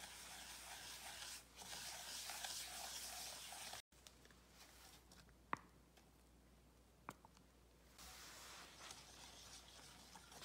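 Wire whisk beating egg yolks and sugar in a stainless steel bowl: a soft, continuous swishing of the wires against the metal. It stops for a few seconds in the middle, where there are two light clicks, and picks up again near the end.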